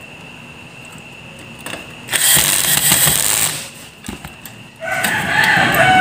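A rooster crowing near the end: one long wavering call that falls in pitch as it closes. Before it, just past two seconds in, comes a loud burst of noise lasting about a second and a half.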